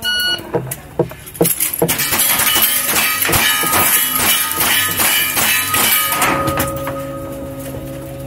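A shot timer's electronic start beep, then rapid lever-action rifle fire, about two shots a second, with steel targets ringing after the hits. The firing stops about six seconds in, leaving a steady background of music.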